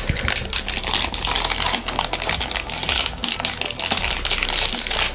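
Clear plastic packaging bag crinkling and rustling as it is handled: a dense, irregular run of crackles.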